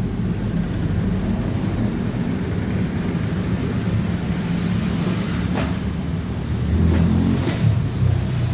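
A few light clicks of a plastic fuse-holder housing as its terminal is pried out, the last ones about two-thirds of the way through and again near the end, over a steady low rumble.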